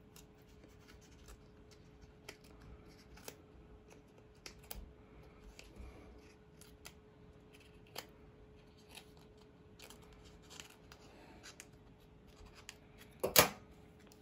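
Small scissors snipping through the leathery shell of a python egg: scattered soft clicks and snips over a faint steady hum. Near the end there is one much louder sharp clack, as the scissors are set down on the stainless steel table.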